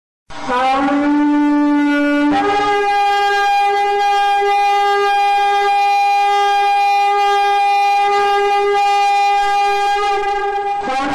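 Shofar (ram's horn) blast: a lower note that steps up after about two seconds to a long, steady higher note held for about eight seconds.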